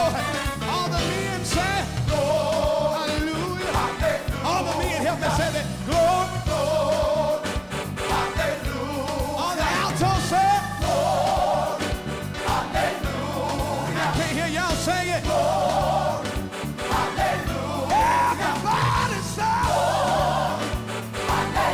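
Live gospel music: a choir and a lead singer singing over a band.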